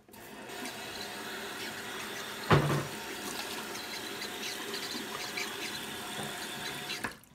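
Bathroom sink tap running steadily while water is splashed onto a face, with a sudden loud thump about two and a half seconds in; the water cuts off shortly before the end.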